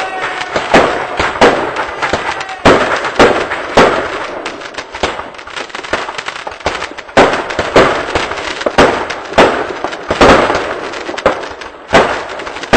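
New Year's Eve fireworks going off: a string of sharp bangs, about one or two a second, with crackling hiss between them. The bangs thin out for a couple of seconds in the middle.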